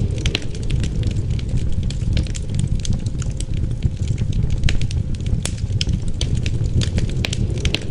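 Wood fire crackling, with frequent sharp irregular pops over a steady low rumble of wind.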